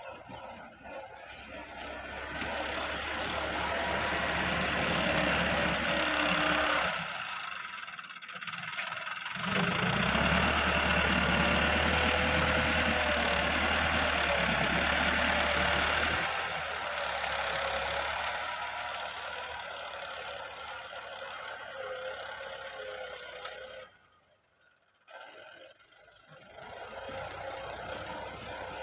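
Massey Ferguson 375 tractor's diesel engine running steadily, with its level rising and falling and dropping away briefly twice.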